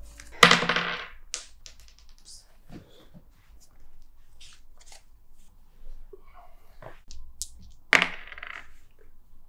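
Small hard board-game pieces clattering on the tabletop: two loud, ringing clatters, about half a second in and near the end, with faint clicks of pieces being handled between them.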